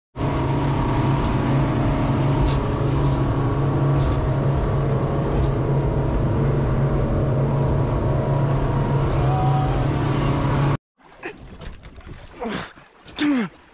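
Motorboat engine running under way at cruising speed, a loud steady drone with a strong low hum. About eleven seconds in it cuts off suddenly, leaving quieter, uneven sounds.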